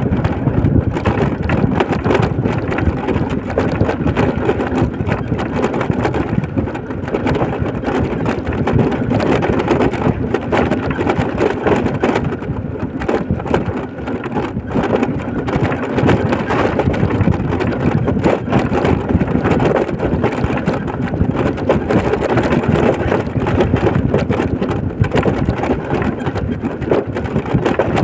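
Steady wind buffeting and road noise from a moving vehicle, rumbling and fluttering throughout with no clear single events.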